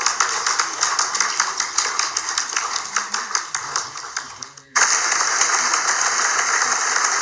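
Applause from a crowd: many hands clapping densely, tailing off about four and a half seconds in, then applause starts again abruptly and keeps going.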